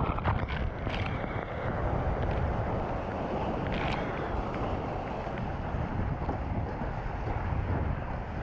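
Wind rumbling on the microphone of a surfboard-mounted camera as the board rides a small breaking wave, with whitewater rushing and spraying alongside. Brief splashes stand out about a second in and again around four seconds.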